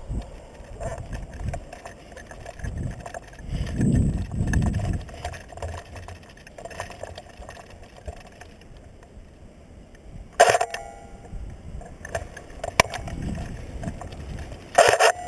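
Rustling and low bumps of a player moving with a head-mounted camera, with two short sharp bursts, one about two-thirds of the way in and one near the end, and a single click between them.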